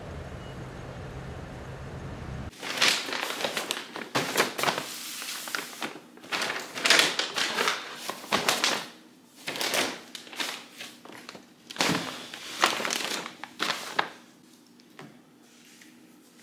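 Paper grocery bags rustling and crinkling as they are handled and set down on a kitchen counter, in irregular bursts with a few knocks, for about eleven seconds. Before that, a low steady rumble for the first couple of seconds.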